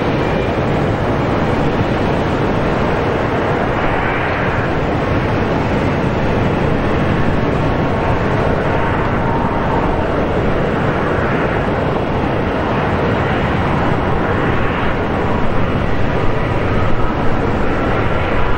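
Steady jet noise from airliners' engines on the runway, with a faint high whine.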